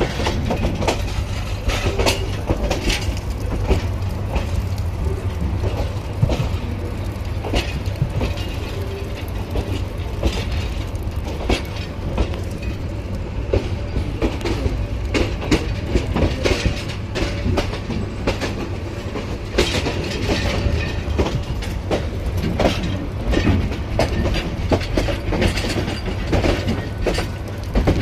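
Passenger train running on the rails: a steady heavy rumble with frequent irregular clicks and knocks from the wheels over the track.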